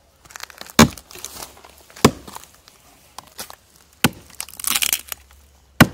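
Small hatchet chopping into a dry, dead log: four sharp wooden chops at uneven intervals, with faint splintering crackle between them.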